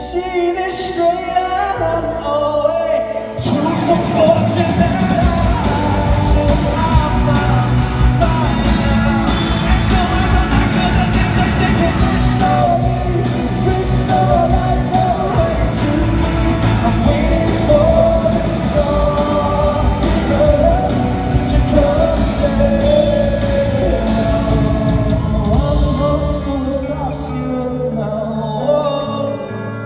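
Live rock performance in a large hall: a male singer over a band. The full band comes in loud about three and a half seconds in, and the sound thins out again near the end.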